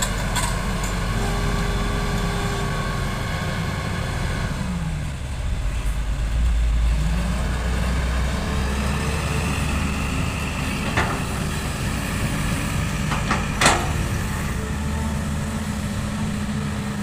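Hitachi hydraulic excavator's diesel engine running steadily, its pitch dipping and climbing back about five seconds in. A few sharp knocks come later.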